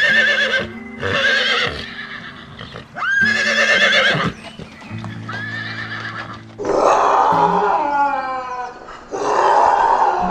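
A horse or zebra whinnying repeatedly: about six wavering, high, pitched calls, the last two longer and rougher. Background music plays underneath.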